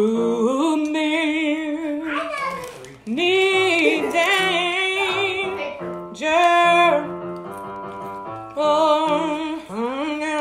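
A woman singing gospel-style in long held phrases with heavy vibrato, over sustained keyboard notes.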